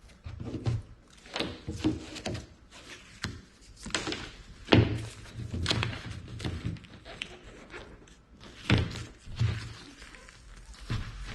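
Irregular knocks and thunks against the kayak's wooden hull as adhesive-backed foam is handled and pressed into place around the deck hatch opening, with two sharper thunks about halfway through and near the end.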